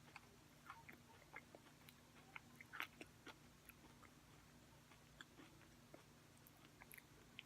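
Faint close-up chewing of Cherry Cola Oreo sandwich cookies, with scattered soft crunches, the loudest about three seconds in.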